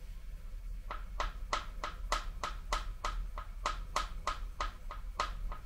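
Sharp metallic clacks, about three a second, starting about a second in, as a part inside the crankcase of a Volvo D67C diesel engine block is worked back and forth by hand through the side inspection opening.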